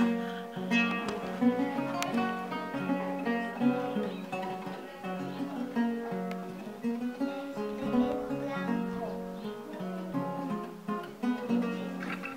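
Background music of acoustic guitar, plucked and strummed.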